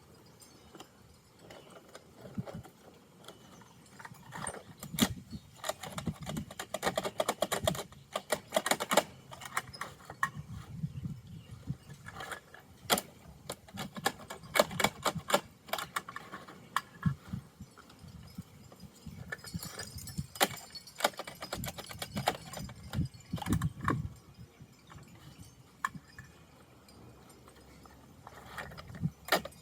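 Irregular plastic clattering, clicking and rattling from a Bruder toy garbage truck and its toy bins being handled, with some soft low thumps. Busiest through the middle, sparse near the start and end.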